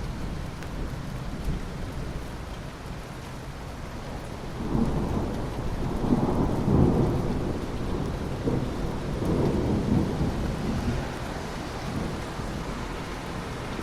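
Steady rain with a long roll of thunder that rumbles in about five seconds in, is loudest a little later, and dies away over the following several seconds.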